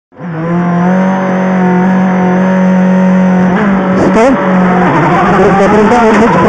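Ford Focus WRC rally car's turbocharged four-cylinder engine, heard from inside the cabin, held at one steady pitch for about three and a half seconds. The car then pulls away, and the engine's pitch rises and falls as it accelerates.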